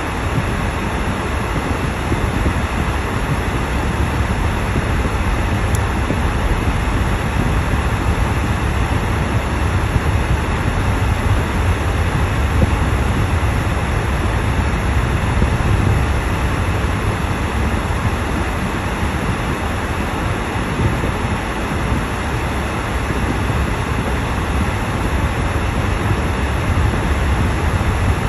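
Steady low road and tyre rumble inside a moving car's cabin, driving over a snow-covered road.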